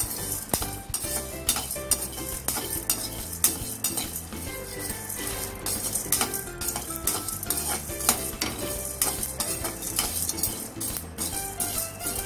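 A perforated steel ladle scraping and clicking against a kadai as whole spices are stirred and dry-roasted without oil, with many short scrapes and clicks throughout.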